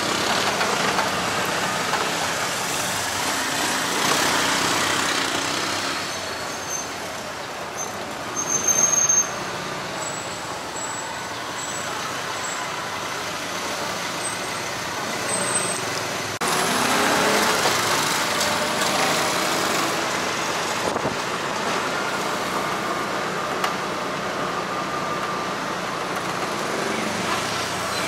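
Engine and road traffic heard from inside a moving auto-rickshaw tuk-tuk, a steady noisy rumble of motor and passing vehicles. A brief, loud, high-pitched squeal comes about nine seconds in.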